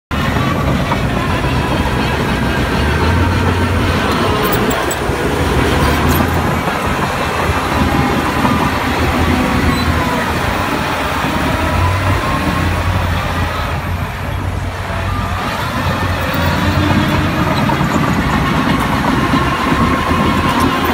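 Shantui DH17 crawler bulldozer at work pushing dirt: its diesel engine runs steadily under load, mixed with the rattle and squeal of the steel tracks, easing briefly about two-thirds of the way through.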